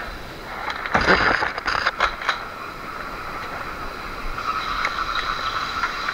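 Airsoft gunfire: a quick run of several sharp shots between about one and two and a half seconds in, over a faint steady hum.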